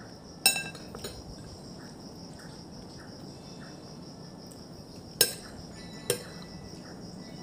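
Cutlery clinking sharply against a plate three times while eating: once about half a second in and twice close together near the end. Crickets chirp steadily in the background.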